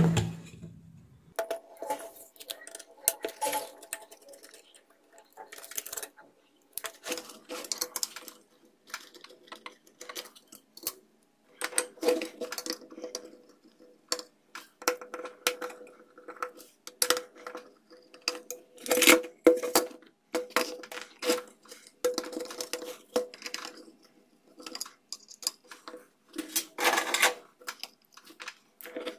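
Screws being turned out and the aluminium power-supply case and its metal parts handled with a screwdriver: a string of irregular metallic clicks, taps, scrapes and light clinks.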